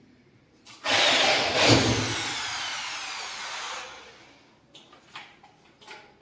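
Electric drill run in one burst about a second in, its motor whine falling steadily in pitch as it slows and fading out by about four seconds in, while work goes on at a gypsum-board ceiling.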